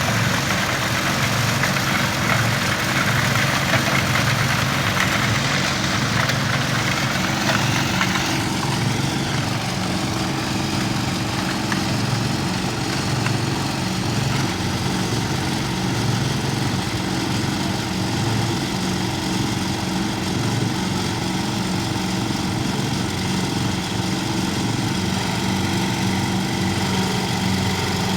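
Diesel engine of a heavy wheel loader running steadily, with a harsher, noisier layer over it for roughly the first eight seconds that then drops away.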